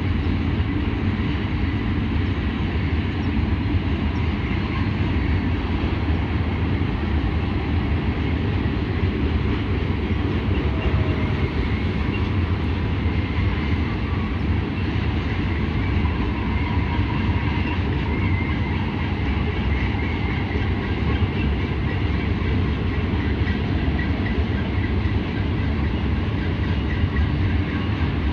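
Freight train rolling past, a steady rumble of wheels on rail that does not let up.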